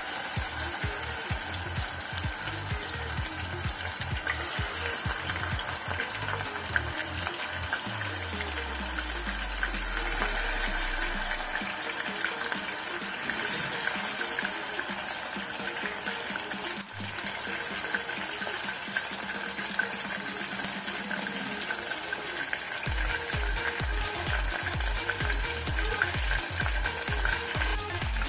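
Chicken pieces deep-frying in hot oil in a saucepan, a steady bubbling sizzle. Background music with a low beat plays underneath.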